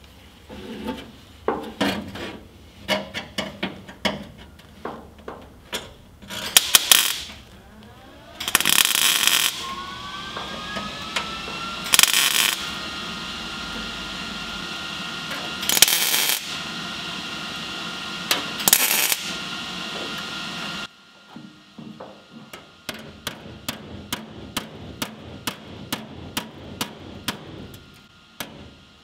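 MIG welder tack-welding a sheet-steel patch panel into a vehicle floor: short crackling tacks at first, then several separate welds of about a second each. Near the end comes a quick, even run of sharp ticks, about three a second.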